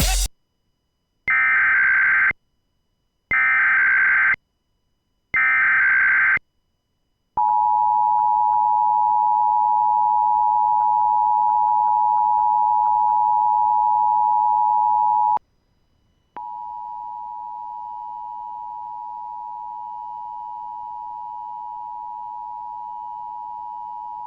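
Emergency Alert System tones. Three one-second bursts of screeching digital header data come first. The steady two-tone EAS attention signal follows for about eight seconds, then a brief gap, then the tone carries on more quietly for about eight seconds more.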